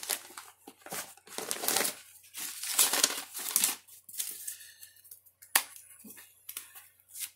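Paper and plastic trading-card packaging crinkling and rustling as it is handled, in irregular bursts, with one sharp click past the middle.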